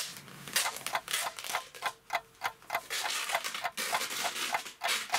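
Clock ticking steadily and evenly, about four ticks a second, over a faint hiss.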